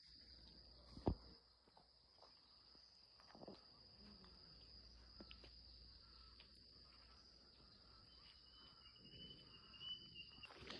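Faint, steady high-pitched insect chorus, with one sharp click about a second in and a faint thin whistle near the end.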